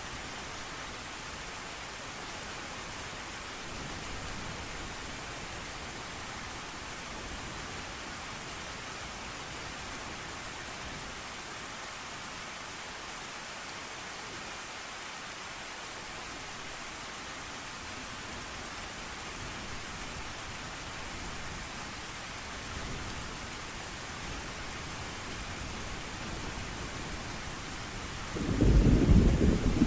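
Steady rain falling, an even hiss, with a faint rumble of thunder now and then; near the end a loud, close thunderclap rumbles in.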